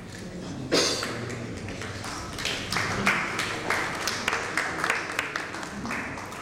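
Scattered hand clapping from a small gathering over low chatter, starting about two and a half seconds in and dying down near the end. A single sudden loud noise comes just under a second in.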